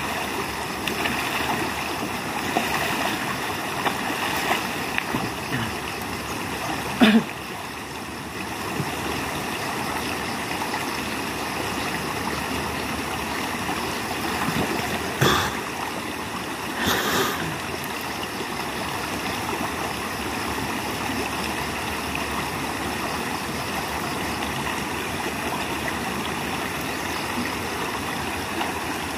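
Shallow stony river flowing steadily, with a person splashing and moving in the water. A brief loud thump comes about seven seconds in, and two shorter splashes come around fifteen and seventeen seconds.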